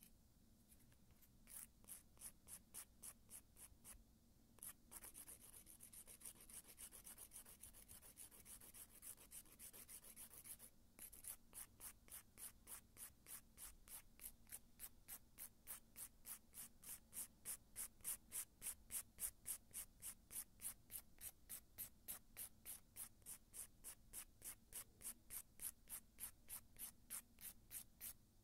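Hand nail file rasping back and forth over a gel-polished fingernail in quick even strokes, about three a second, with two brief pauses. The file is grinding down the gel colour layer to take the polish off, stopping short of the base coat.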